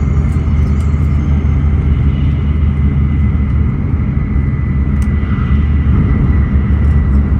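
Cabin noise of an N700A Shinkansen running at speed: a steady low rumble with a thin high whine above it.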